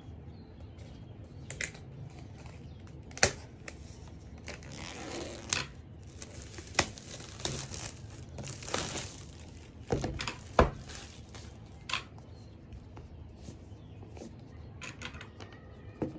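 Clear plastic shrink wrap being torn and crinkled off an iPad box, in rustling bursts, with several sharp knocks of the box against the desk.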